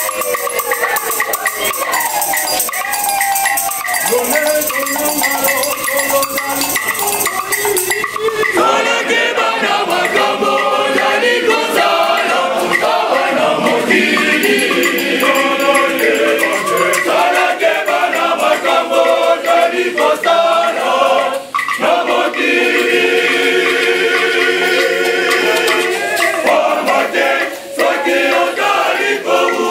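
A group of voices singing together, with a hand tambourine shaken and struck in a steady rhythm; the tambourine's jingles are loudest in the first several seconds.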